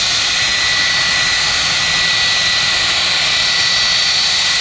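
Jet airliner engines running steadily: a broad rush of noise with two steady high-pitched whining tones over it.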